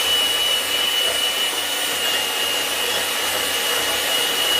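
Electric hand mixer running at a steady speed with a constant high whine, its twin wire beaters creaming soft room-temperature butter in a glass bowl.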